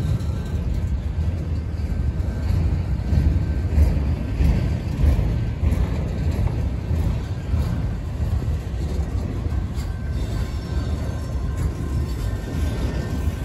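Freight train of autorack cars rolling past at close range: a steady low rumble and clatter of steel wheels on the rails. A faint thin squeal comes in near the end.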